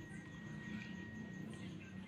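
Faint background hum and hiss with a thin, steady high-pitched tone, in the pause between two zebra dove coos; no coo is heard.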